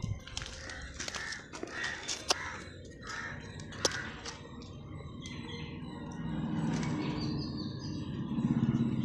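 Bird calls, crow-like caws among them, with scattered clicks; a louder low buzzing sound comes twice in the second half.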